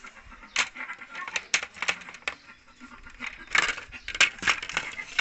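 Sharp clicks and clatters of small hard objects being handled and knocked together, in two bunches.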